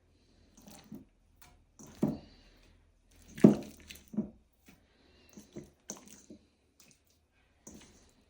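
Wet squelches and soft thuds of diced raw venison being handled and dropped into a meat grinder's feed tray, irregular, the loudest about two seconds and three and a half seconds in.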